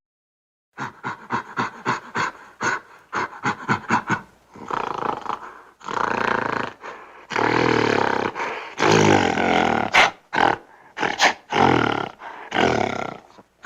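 Fictional giant-ape creature calls made as a sound effect: after a brief silence, a rapid run of short calls, several a second, then longer roaring calls with pauses between them.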